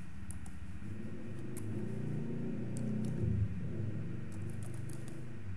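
Computer keyboard being typed on, a scattering of soft separate key clicks as letters are entered one at a time, over a steady low hum that swells a little in the middle.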